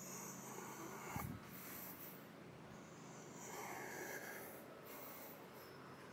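Faint breathing close to the microphone, with a brief low thump about a second in.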